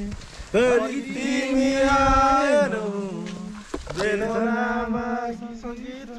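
A man's voice singing long held notes in a chanting style, sliding between pitches.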